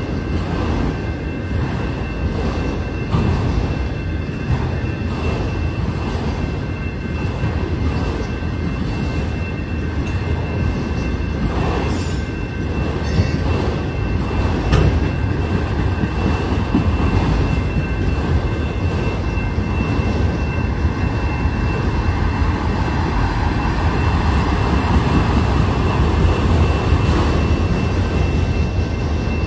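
Autorack freight cars rolling past: a steady rumble of steel wheels on the rails with faint, regular clicking over the rail joints, and a thin, steady high whine.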